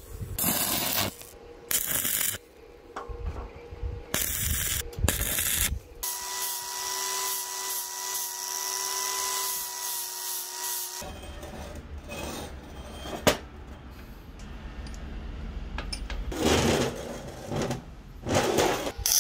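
Stick (arc) welding crackling in short stop-start bursts, then an angle grinder grinding steel for about five seconds with a steady whine, then knocks and clinks of metal parts being handled.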